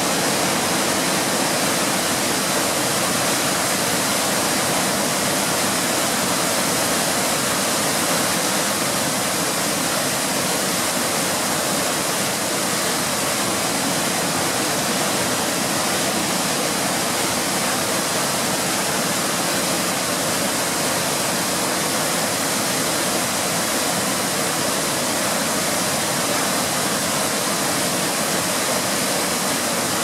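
Waterfall in high flow pouring over a rock ledge into a plunge pool: a steady, even rush of falling water.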